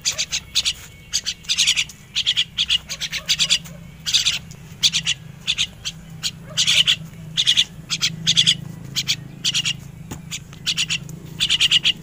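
Young crested mynas giving short begging calls over and over, in quick runs of several calls.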